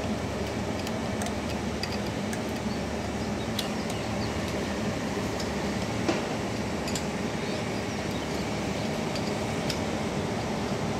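Light metallic clicks and clinks of small metal parts and a tool being handled at the motor's shaft end, with one sharper knock about six seconds in, over a steady background hum.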